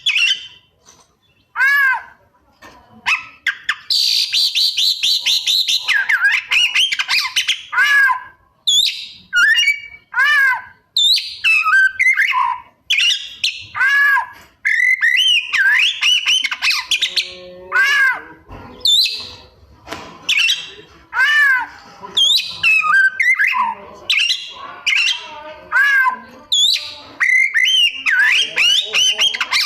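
Oriental magpie-robin (kacer) singing a loud, varied song: repeated arching whistled notes broken by short pauses, with a fast high chattering run a few seconds in. The song mixes in mimicked calls of other birds (isian).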